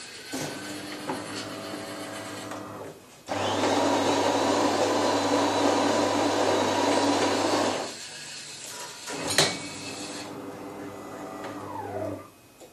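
Small electric motors of a LEGO robot whirring, broken by a much louder steady machine noise with a low hum lasting about four and a half seconds. A sharp click comes about nine seconds in, then the motors whir again and wind down to a stop.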